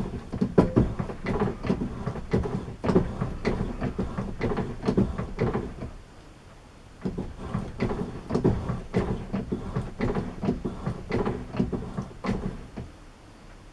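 Repeated scraping strokes of a broaching tool being fed through a steel sleeve's bore on a lathe, about two strokes a second, with a short pause about six seconds in.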